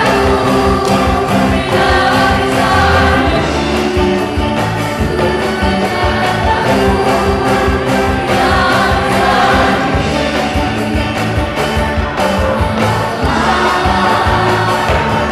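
A group of voices singing an upbeat song together over instrumental accompaniment with a steady beat.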